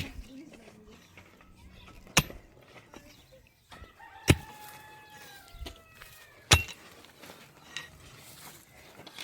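A rooster crowing once with a long call that falls in pitch near the end. Four sharp knocks at an even pace, about two seconds apart, are louder than the crow.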